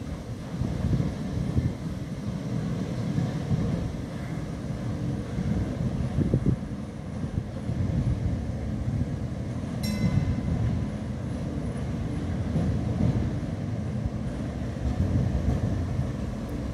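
Heritage electric tram running along its track toward the listener, a steady low rumble of wheels and motor. A single short metallic ping comes about ten seconds in.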